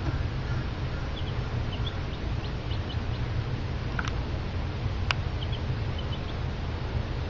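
Baby chick peeping: short, high cheeps, singly and in quick pairs, over a steady low hum. Two sharp clicks come about four and five seconds in.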